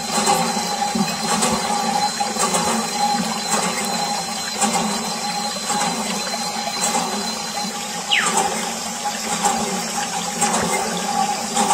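Water streaming from a thin plastic tube and splashing onto sand-covered toy auto rickshaws, washing the sand off, with a steady hum underneath.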